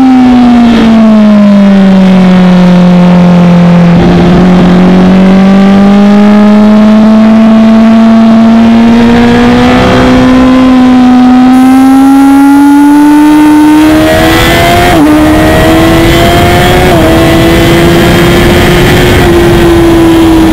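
Onboard sound of a Honda CBR1000RR sport bike's inline-four engine on a race track. Its note falls as the bike slows for a corner, then climbs steadily as it accelerates out along the straight, with a couple of short hitches in the note late on. Wind rushes past the microphone.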